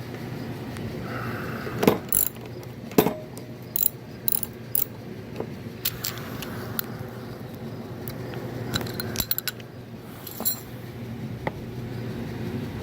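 Socket wrench ratcheting and metal tools clinking while a 10 mm shroud bolt is loosened on a mower engine. The clicks are sharp and irregular, with a quick cluster about nine seconds in.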